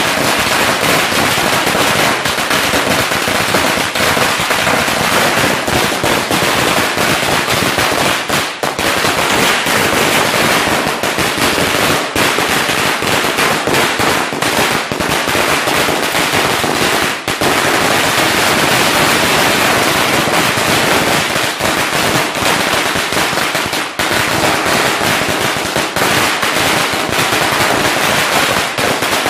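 A long string of firecrackers, a 3000-shell chain, bursting on the ground in a rapid, unbroken volley of sharp bangs, with a few brief lulls.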